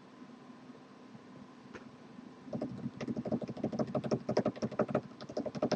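Faint room hiss, then from about two and a half seconds in a quick, uneven run of light taps, several a second, that stops just before the end.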